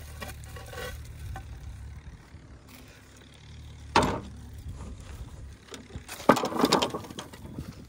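Tractor engine idling with a steady low hum that fades out about six seconds in. Over it come a sharp wooden knock about four seconds in and a quick clatter of knocks near the end, as wooden poles are laid on the trailer.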